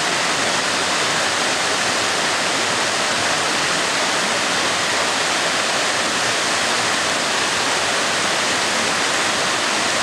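Waterfall cascading down tiered rock ledges into a rocky stream: a steady, even rush of falling water.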